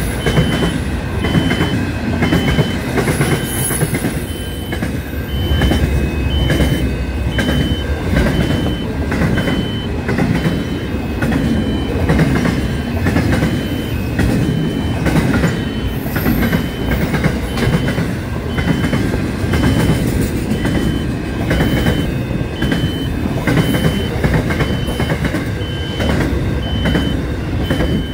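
A long container freight train passing close by, its wagon wheels rumbling steadily on the rails with clicks from the rail joints. A high electronic beep repeats about one and a half times a second throughout.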